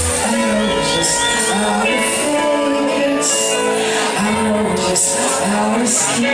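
Live reggae dancehall performance: a backing riddim plays over the sound system while a male artist sings into a microphone.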